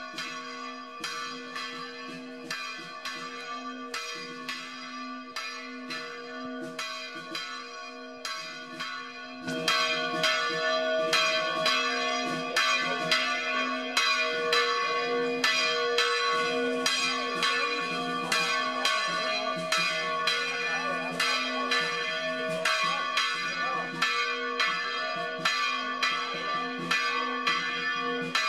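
Church bells ringing a rapid peal, about three strikes a second over their sustained ringing tones, getting louder about nine seconds in.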